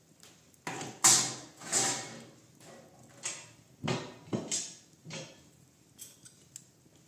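Kitchen handling noises: a string of short knocks, clatters and scrapes of cookware and utensils being moved about, the loudest about a second in.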